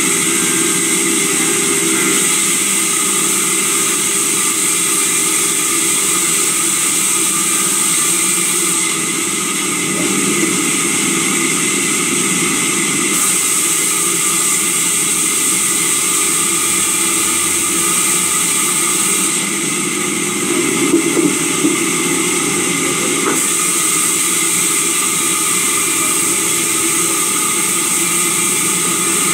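Sawmill saw machinery running steadily: a dense mix of motor hum and high-pitched whine. The sound changes briefly twice, about a third of the way in and again about two-thirds in, with a few light knocks during the second change.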